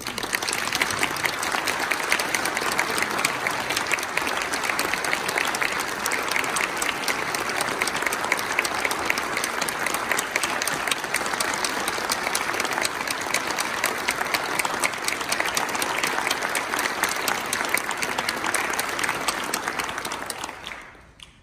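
Audience applauding, a dense steady clapping that starts suddenly and dies away near the end.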